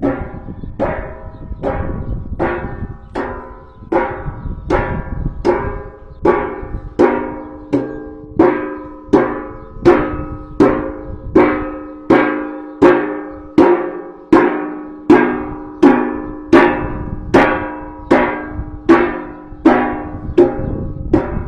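A pitched drum beaten in a steady rhythm, about four strokes every three seconds, each stroke ringing and dying away before the next. Through the first half a low rumble sits underneath.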